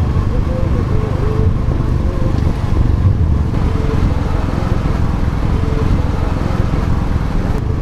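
Royal Enfield Classic 350's single-cylinder engine running steadily as the motorcycle rides along the road.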